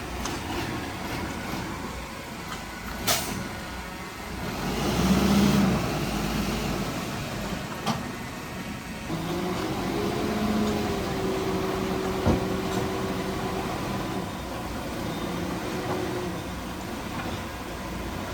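Heavy diesel earthmoving machinery running on a construction site: a steady engine drone with a sharp knock about three seconds in, a louder swell around five seconds, and a held engine note from about nine seconds that rises briefly in pitch before settling.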